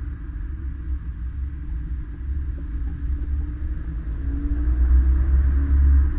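Borla aftermarket exhaust on a 2013 Hyundai Veloster Turbo's 1.6-litre turbocharged four-cylinder, a deep rumble while driving. It is quieter at first, then rises in pitch and level as the car accelerates, about four seconds in.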